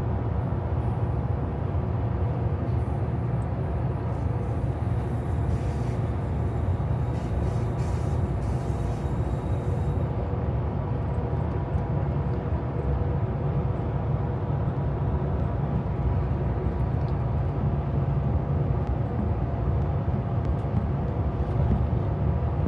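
Amtrak California Zephyr passenger train in motion: the steady low rumble and running noise of the ride, unbroken and even in level.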